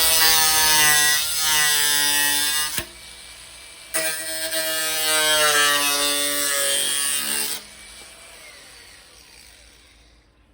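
Angle grinder cutting sheet steel in two runs of about three seconds each, its motor whine wavering in pitch under load; after the second cut it is released and winds down slowly.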